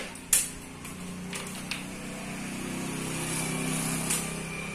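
A low engine hum that swells and then fades, like a passing motor vehicle, with a sharp click just under half a second in and a few fainter ticks later.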